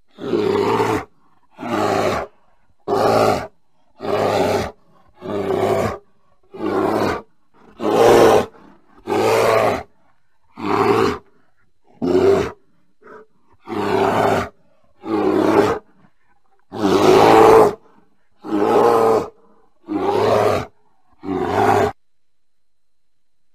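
A bear calling over and over: about seventeen short, deep, pitched calls, roughly one a second, with silence between them. The calls stop about two seconds before the end.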